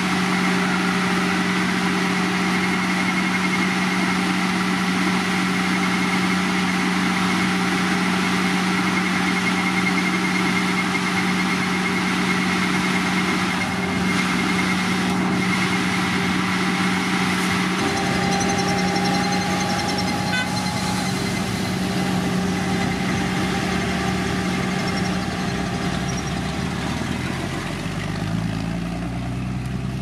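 Heavy road-construction machinery's diesel engine running steadily with a constant hum, its note shifting about two-thirds of the way in and a lower engine note rising and changing pitch near the end.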